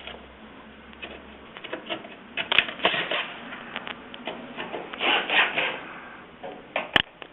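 Light clicking and rattling of metal kiln hinge hardware being handled, in a few short clusters, with one sharp click near the end.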